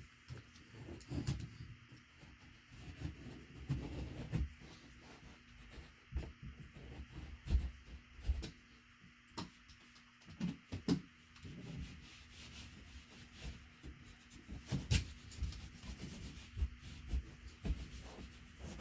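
Utility knife blade cutting and scraping through the caulk along the top of a baseboard, in short irregular strokes, with a few sharp knocks.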